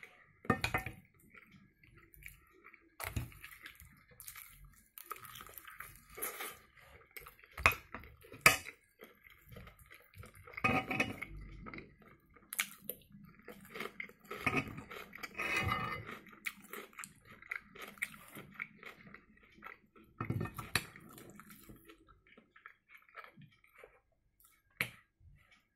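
Close-up chewing of fried eggs, sausage and fresh cucumber, with sharp clinks and scrapes of a metal spoon and fork against a frying pan scattered throughout.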